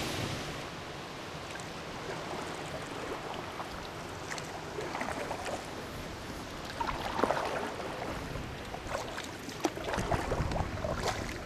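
Kayak paddle strokes splashing and dripping in calm river water, irregular splashes growing busier in the second half. A rush of rapids fades at the very start, and wind buffets the microphone near the end.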